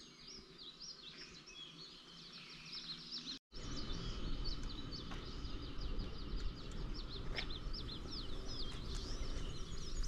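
Small birds chirping and singing, many short quick calls overlapping. About three and a half seconds in there is a brief cut, after which a steady low background rumble comes up under the birds.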